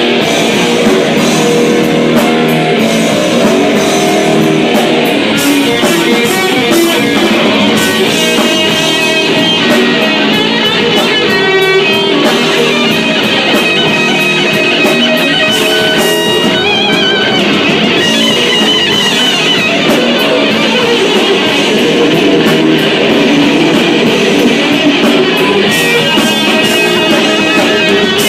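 Rock music led by guitar, playing steadily and loud throughout.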